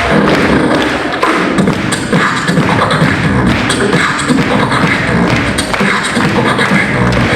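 A live solo beatboxing performance: rhythmic vocal drum sounds (kicks, snares and hi-hat hisses) over a low hummed bass line.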